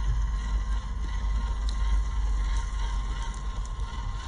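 WPL B-36 6x6 RC truck crawling over wood-chip mulch: a faint steady whine from its electric motor and gearbox and light crackles from the chips under its tyres, beneath a steady low rumble of wind on the microphone.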